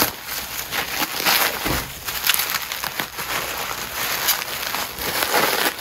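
Plastic bubble wrap crinkling and crackling as it is handled and pulled open by hand: a dense run of sharp crackles and rustles.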